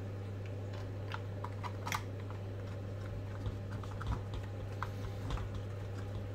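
Light scattered clicks and ticks of a hex driver turning a small screw into an aluminium motor mount, with one sharper click about two seconds in, over a steady low hum.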